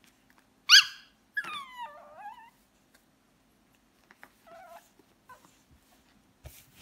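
Pug puppy whimpering: a short, sharp yelp about a second in, then a wavering whine that falls in pitch, and a fainter short whine around the middle.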